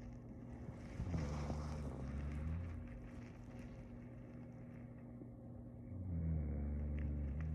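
A sleeping person snoring: two low snores about five seconds apart, each lasting about two seconds, over a steady low hum.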